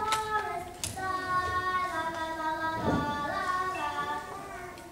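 Children singing a song in held notes. There are two sharp clicks in the first second.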